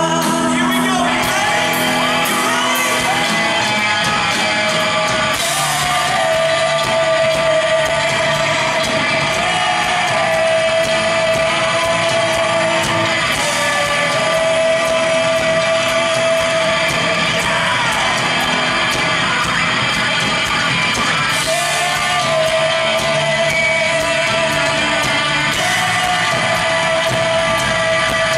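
Live rock band playing, with the lead singer holding long sung notes over electric guitar, bass guitar and drums.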